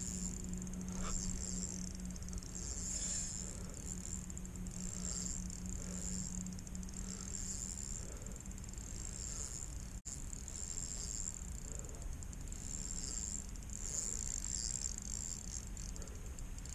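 Crickets chirping in a steady high-pitched chorus that swells and fades every second or two. A low steady hum runs under it and fades out about halfway through.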